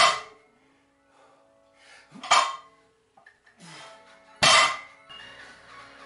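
Loaded barbell set back down on the floor three times during barbell rows, each rep a sharp clank of the weight plates, about two seconds apart, with a brief ringing after each; breaths between reps.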